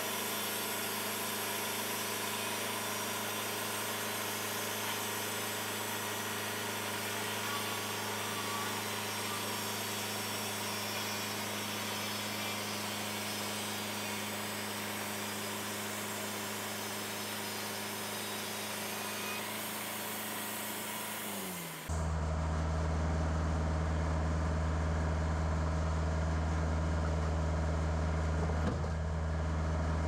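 Wood-Mizer portable band sawmill running steadily, its engine humming under a constant hiss as the band blade saws through a cherry log. About 22 seconds in the sound changes abruptly to a louder, lower steady engine tone, and the hiss is gone.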